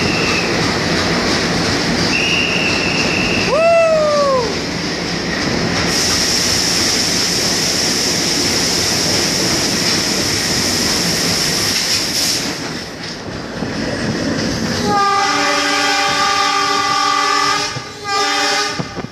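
Passenger train running through a tunnel, heard from inside the carriage: a steady loud rumble of wheels on rails, with a few short squeals and a falling squeal about four seconds in and a steady high wheel whine through the middle. Near the end the train's horn sounds for about four seconds, with a short break, as the train comes out into daylight.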